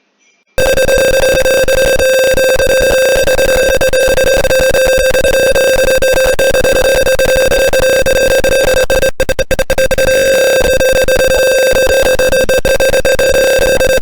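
Simulated piezo buzzer of a Tinkercad Arduino smoke alarm sounding one loud, steady, buzzy mid-pitched tone: the alarm triggered by the gas sensor detecting smoke. It starts about half a second in and breaks up briefly a few times around nine seconds.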